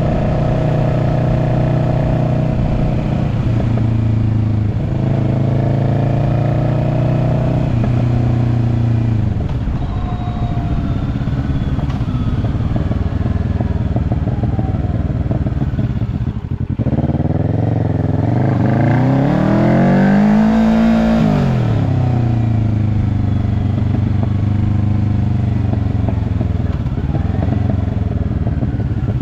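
Kawasaki Ninja 650 parallel-twin engine running through an aftermarket link pipe and slip-on muffler, its pitch rising and falling with engine speed. A brief drop about two-thirds of the way through is followed by one big climb and fall in pitch.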